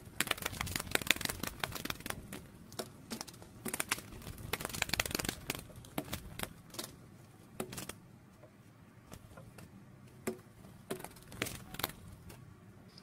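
Irregular crackling and clicking, dense at first and thinning to scattered single clicks after about eight seconds.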